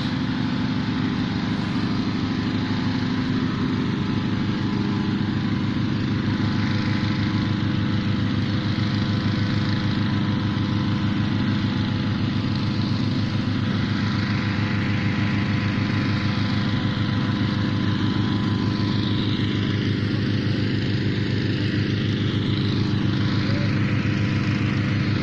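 Petrol-engined inflator fans running steadily, blowing cold air into hot air balloon envelopes during cold inflation.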